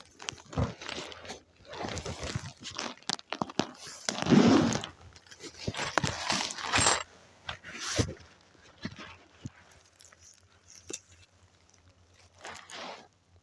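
Footsteps and rustling through dry leaves and undergrowth: an uneven run of crunches and crackles, loudest about four to five seconds in, thinning out near the end.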